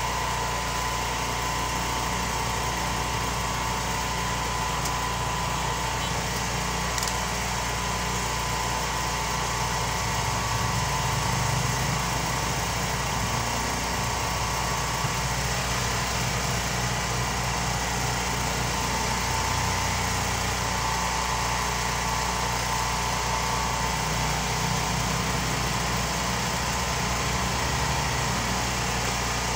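An engine idling steadily, an even drone with a faint high whine that does not change.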